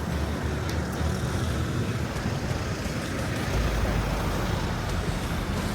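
Road traffic noise, a steady hiss with a low rumble that grows stronger about three and a half seconds in.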